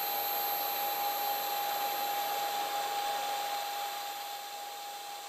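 Steady fan-like hiss with a constant high whine from an idle, powered-up 3D printer's fans and electronics, getting slightly quieter toward the end.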